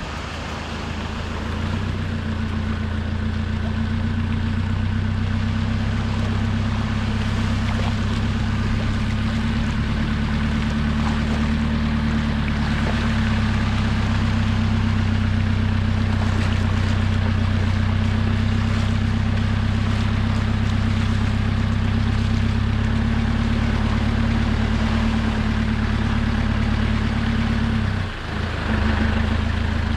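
Four-wheel-drive vehicle's engine running at a steady, low pitch as it drives along wet beach sand, with hiss from the tyres and water. The sound dips briefly near the end.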